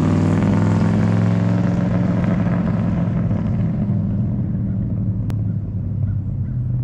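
1970 Plymouth Duster 340's 340 cubic-inch V8 running through original 1970s Thrush mufflers on a 2.25-inch exhaust as the car drives away. The exhaust note fades as it pulls off, leaving a steady low rumble. A brief click comes about five seconds in.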